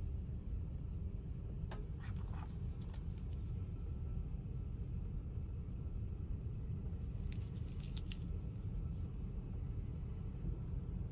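Steady low rumble inside a sleeper-train cabin, with two short spells of crisp handling clicks and crinkles as a card folder and a small paper-wrapped soap bar are handled.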